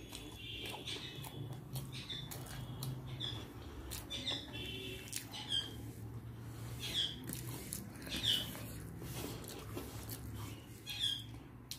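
Close-up mouth sounds of chewing a fried prawn pakora: wet clicks and short lip smacks, many times over, above a faint low hum.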